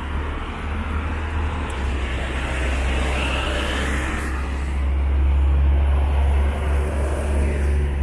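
Road traffic on a multi-lane city road, cars driving past over a steady low rumble.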